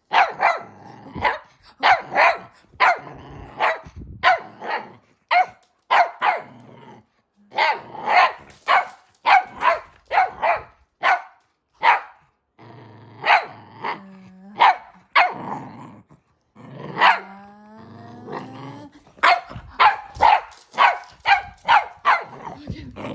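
A Cavalier King Charles Spaniel barking over and over in short, sharp barks, roughly one or two a second. About two-thirds of the way through come two longer, drawn-out calls that slide in pitch.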